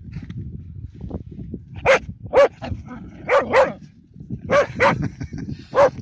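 Small black dog barking in short, high barks, mostly in pairs, about seven in all starting about two seconds in.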